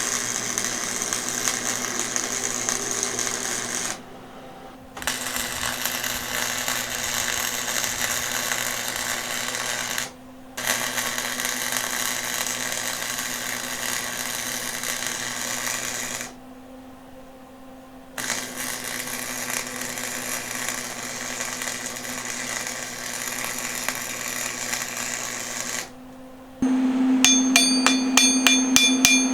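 Arc welder running long weld beads on a steel axle mount: a steady crackling sizzle over the welder's hum, in four runs of about four to eight seconds with short pauses between them. Near the end the crackle gives way to a rapid, even clicking over a louder hum.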